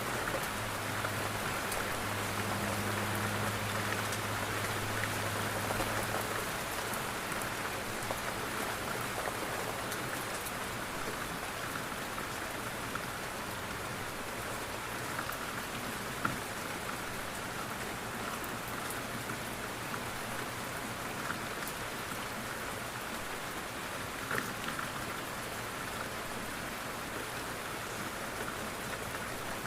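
Steady rain falling on a window pane, with a few louder single drops ticking now and then. A low hum sits underneath and fades after about the first six seconds.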